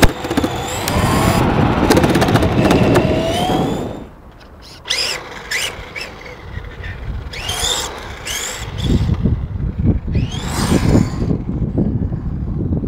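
Radio-controlled car's electric 540 motor and drivetrain whining as the car runs over the tennis-court surface, the pitch rising and falling with the throttle, with a rough rolling noise under it. The run stops abruptly about four seconds in. After that come a few short rising motor whines and a low rumble.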